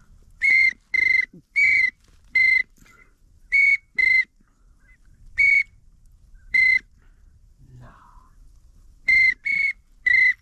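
Duck whistle blown in short, loud, steady-pitched toots, singly and in quick pairs with pauses between: a hunter calling ducks, here pintails, in toward the decoys.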